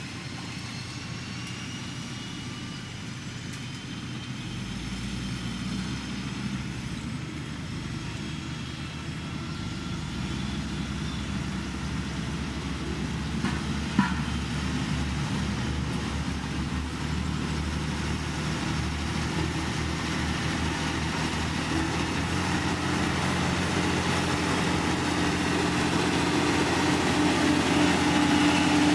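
Diesel engine of heavy road-construction machinery running steadily and growing gradually louder as it comes closer, with a strong low hum building near the end. There is one sharp click about halfway through.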